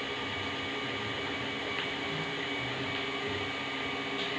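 3D printer printing: a steady whir with constant tones, and under it short low motor notes that keep changing pitch as the print head moves.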